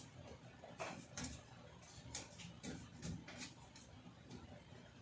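Faint, irregular crackles and rustles of electrical tape being pulled off the roll and wrapped around spliced wires.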